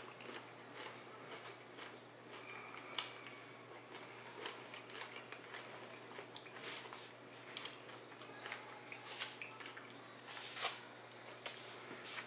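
Faint, irregular crunching and chewing of nacho tortilla chips, with small scattered clicks and crackles from handling the food.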